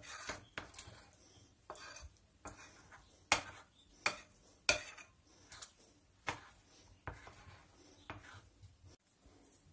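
Metal spoon stirring a thick yogurt-and-starch slime in a porcelain bowl, clinking and scraping against the bowl at irregular intervals. The loudest clinks come a little after three seconds and again near five seconds in.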